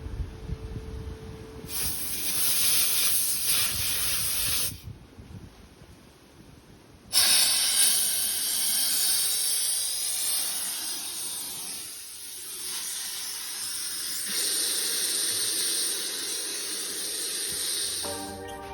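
Gas under pressure hissing in two bursts: a short one about two seconds in, then after a pause a longer, louder one that starts suddenly and runs on for about ten seconds.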